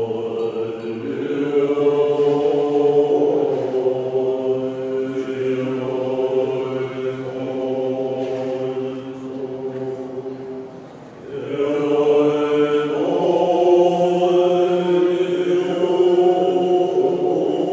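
Tibetan Buddhist monks chanting together in low voices, holding long sustained tones. The chant dips briefly about ten seconds in, then a new phrase begins.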